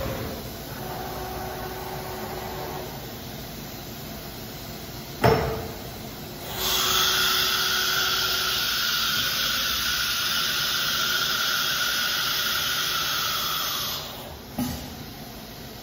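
CNC router's automatic tool change on an HSD electro spindle. Faint gantry drive hum, then a sharp clunk about five seconds in. A loud, steady hiss of compressed air follows for about seven seconds and stops, and a second, smaller clunk comes shortly after.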